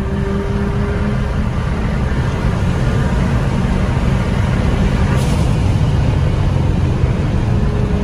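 Inside the cabin of a turbocharged Ford Focus cruising on the highway: a steady low engine drone mixed with road noise. A faint whine is heard in the first second and again near the end, and a brief hiss comes about five seconds in.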